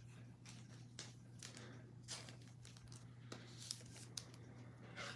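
Faint rustling and soft ticks of trading cards and pack wrappers being handled, over a steady low hum.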